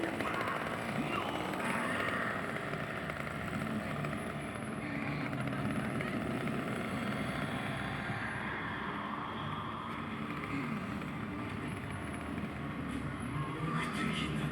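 Chainsaw engine running, its pitch rising and falling now and then as it is revved.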